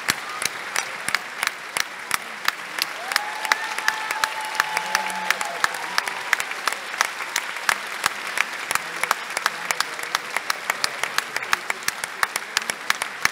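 Large theatre audience applauding steadily, with loud, quick claps from someone close by standing out over the crowd's clapping. A long shout from the audience rings out a few seconds in.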